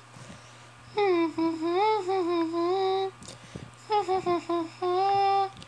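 A high voice humming a wordless tune in long held notes, three phrases with short pauses between them, over a steady low hum.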